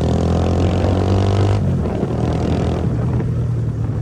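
Motorcycle engine running steadily under way on a dirt track, with a rushing noise over it that drops away about a second and a half in.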